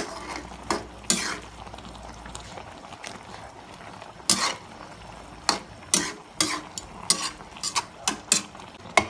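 A metal cooking utensil clinking and scraping against a pot, about a dozen irregular strikes, some in quick runs in the second half.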